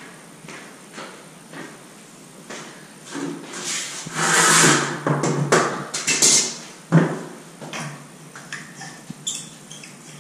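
A person moving about close by: irregular rustling and knocks, loudest a few seconds in, with one sharp knock about seven seconds in and a few lighter clicks after it.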